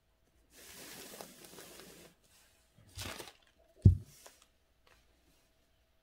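Sheet of calligraphy paper being slid along the desk: a soft rustle lasting over a second, then a shorter rustle and a single sharp low knock about four seconds in.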